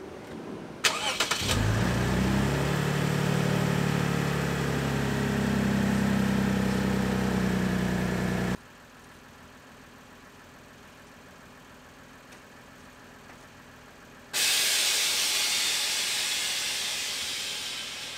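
Air suspension venting: a loud hiss of air let out of the bags, fading steadily as the car settles lower. Earlier, after a few clicks, a motor hums steadily for about seven seconds and cuts off suddenly.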